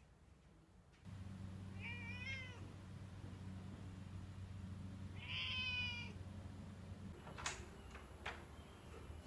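A domestic cat meowing twice, the second call longer and louder. Two sharp clicks follow near the end, from the door handle being worked.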